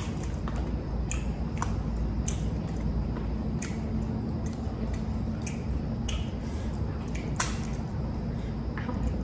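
Wet, squishy sounds of fingers peeling and picking meat from sauce-covered crab and lobster shells, with scattered sharp clicks and cracks of shell, over a steady low hum.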